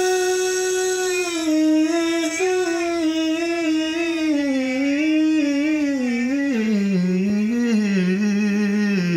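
A man singing a vocal riff unaccompanied and slowed down. He holds a note, then runs down through quick, wavering ornamental turns and ends about an octave lower.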